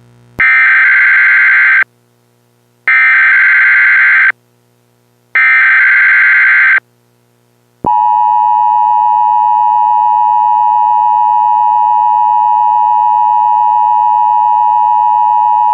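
Emergency Alert System tones: three bursts of digital SAME header data, each about a second and a half long with a second of silence between them. About eight seconds in, the steady two-tone EAS attention signal (853 and 960 Hz) begins, the signal that an alert message is about to be read.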